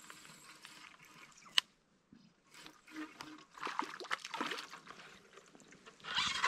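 Shallow water trickling and splashing with an irregular crackle, louder again near the end, and one sharp click about a second and a half in.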